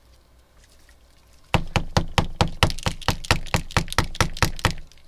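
A small alcohol ink bottle shaken hard, its mixing ball knocking inside in a fast, even rattle of about four or five strokes a second. The rattle starts about a second and a half in and stops shortly before the end.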